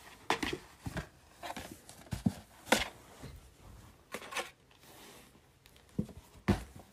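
Cardboard tissue box rustling and scraping as a kitten works its way into it and shuffles around on carpet: a string of short, irregular scratches and taps.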